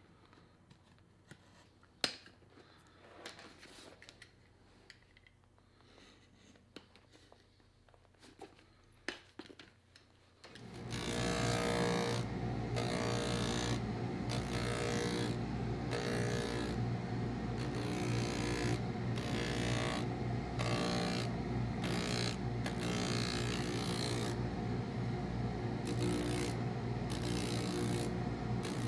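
Small clicks and taps of hand work, then about a third of the way in a motor-driven shoe-repair machine starts up and runs steadily with a hum, with a gritty rubbing that comes and goes as the work is pressed against it.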